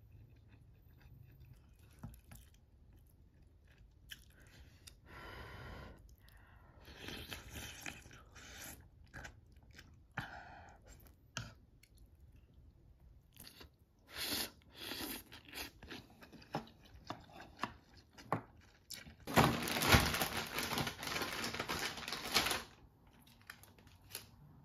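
Close-miked eating of ramyeon noodles and radish kimchi: scattered light chopstick clicks, chewing and crunching, and a long loud noodle slurp of about three seconds near the end.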